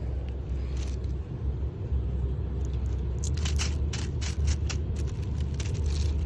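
A steady low rumble, with a run of sharp clicks and ticks in the middle and a few more near the end.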